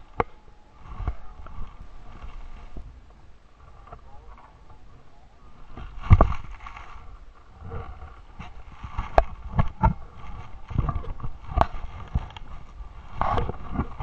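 Irregular knocks and thumps on a small open boat, with water sloshing against the hull. Faint muffled voices come and go.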